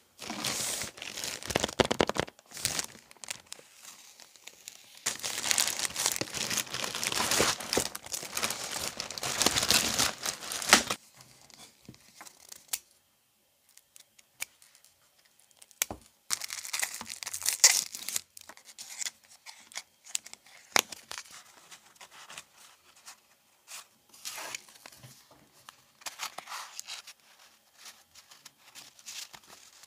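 Unboxing sounds: a plastic mailer bag crinkling and being torn open, loudest for about six seconds early in the stretch. A quieter spell follows while a craft knife slits a box open, then bursts and light rustles as paper cards and packaging are handled.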